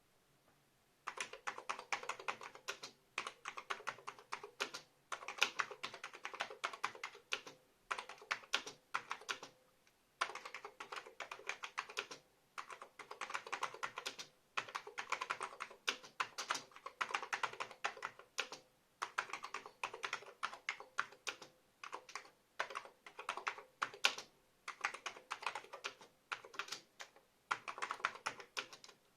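Typing on a Mitsumi KKR-E99AC computer keyboard: rapid key clicks in runs of a second or two, broken by short pauses. The typing starts about a second in.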